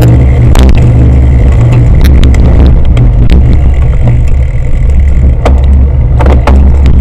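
Heavy wind buffeting on the microphone of a camera carried on a cyclocross bike at speed over a dirt course, with the bike rattling and clicking sharply over bumps several times.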